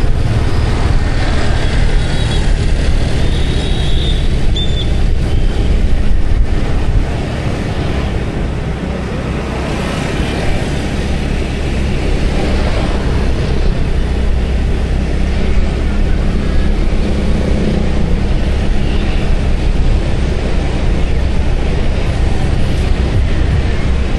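Motorbike running steadily at riding speed along a city street, its engine rumble mixed with the noise of surrounding scooter traffic. It eases off a little partway through, then picks up again.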